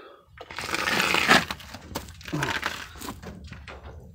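Scraping, rustling and knocking as a person clambers out of a crawl space through a small access door, loudest about a second in.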